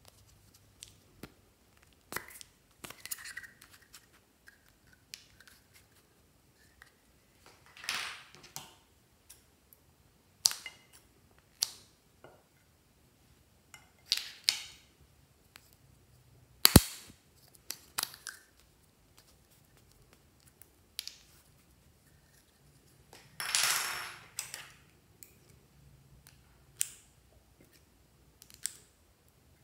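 Scissors snipping through lip balm and lipstick sticks, a dozen or so separate crisp snips and clicks with pauses between. A very sharp click about halfway through is the loudest, and a longer rasping cut lasts about a second a little past two-thirds of the way.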